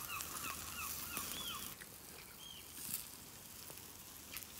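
Birds calling: a quick run of short, repeated honking calls for about the first second and a half, then one or two more a little later.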